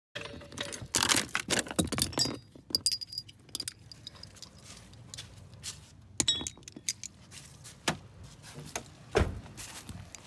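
Loose metal hardware clinking and rattling as it is handled, with short ringing metallic chinks about two to three seconds in and again around six seconds, and a duller knock near the end.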